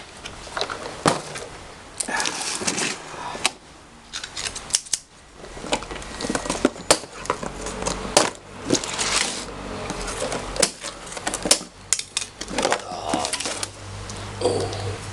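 Hands unpacking and handling plastic parts and packaging: a string of sharp clicks and snaps among rustling.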